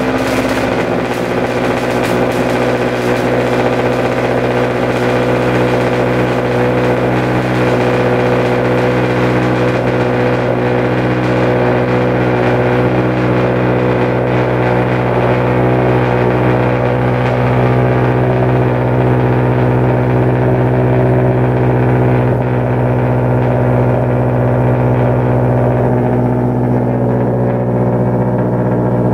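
Scion FR-S's 2.0-litre flat-four boxer engine idling steadily just after a cold start, loud through a full exhaust with no catalytic converters and no resonators.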